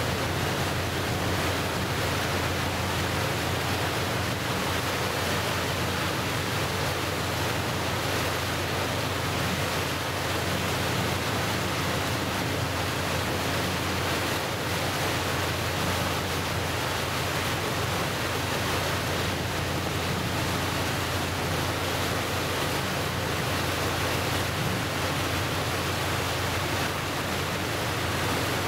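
Steady rush of wind and choppy waves washing against the shore, an even noise with no separate events.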